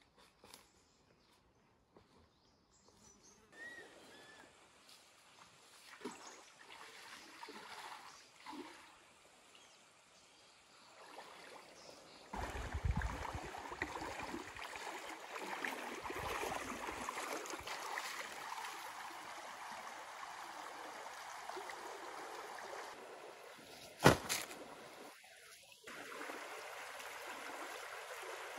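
Shallow river water: a person wading and splashing through it, then a stream running over rocks. Soft rustling footsteps come first, and a single sharp click cuts in near the end.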